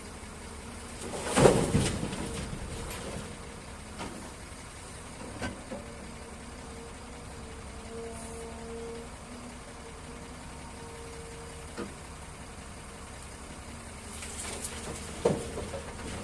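A steady mechanical rumble with a few sharp knocks or clanks, the loudest about a second and a half in and another near the end.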